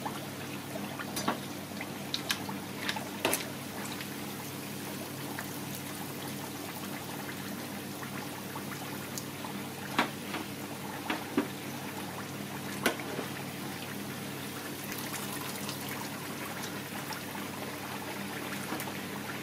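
Hot duck fat dripping and trickling back into a large aluminium stockpot as confit duck carcasses are lifted out of it, with a few sharp clicks along the way.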